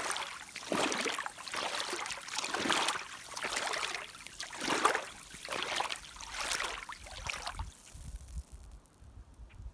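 Water splashing and sloshing around rubber rain boots in repeated swishes, about one a second, as they are moved through shallow water to clear off mud; the swishing stops about eight seconds in, leaving a low rumble.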